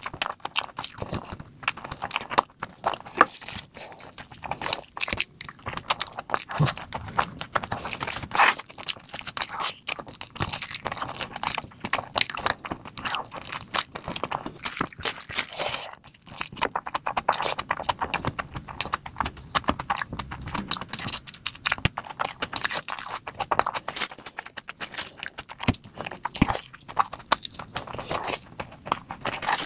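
Close-miked chewing of mutton and rice eaten by hand: wet, mouthy mastication with frequent sharp clicks and crunches in a quick, irregular stream.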